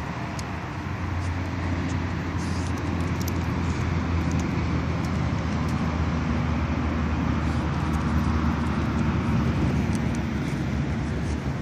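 Steady rumble and hiss of road traffic crossing a bridge, growing a little louder about a second in.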